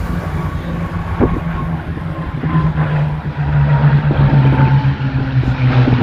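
Propeller aircraft's piston engine droning steadily, growing louder about halfway through.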